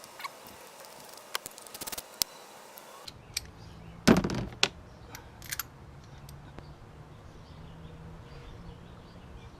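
Sharp metallic clicks and knocks of a socket and extension on a spark plug, with one louder knock about four seconds in. A low steady hum starts about three seconds in.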